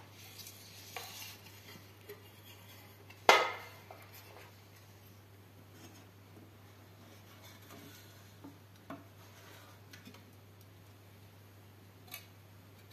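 Parts of a dismantled LED floodlight being handled on a table: one loud clack with a short ringing about three seconds in, as a hard metal or glass part is set down, and a few lighter clicks and taps.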